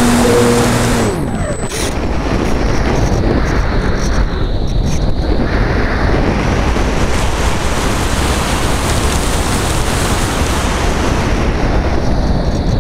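Phoenix 2000 RC glider's electric motor and propeller running at a steady pitch, then cut about a second in and winding down to a stop. The rest is steady wind rushing over the camera on the fuselage as the glider flies unpowered.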